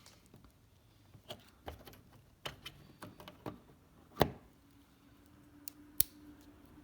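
Flathead screwdriver prying plastic push-pin trim clips out of car trunk trim: a series of irregular sharp clicks and taps, the loudest a little after four seconds in.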